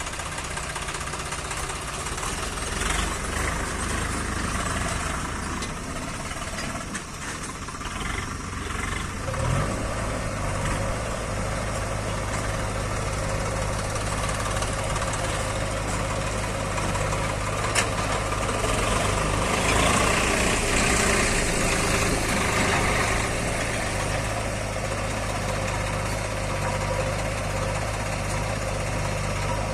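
Heavy diesel engine running steadily. About ten seconds in its pitch rises and then holds at the higher speed, and it grows briefly louder around twenty seconds in.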